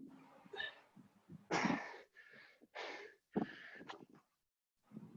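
Heavy, gasping breathing of a man exhausted from doing burpees: loud rasping exhalations about every second or so, with a few short knocks between them.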